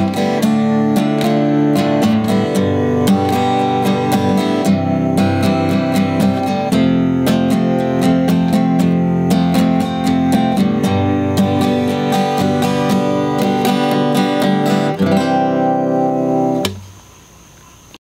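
Acoustic guitar strummed in a steady rhythm, playing an instrumental close of a folk song; the playing stops about a second before the end.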